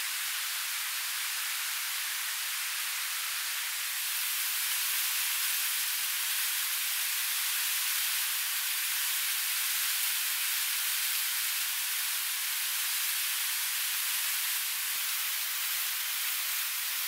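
Steady rushing of a waterfall-fed river, heard as an even hiss with no low rumble; it grows slightly louder about four seconds in.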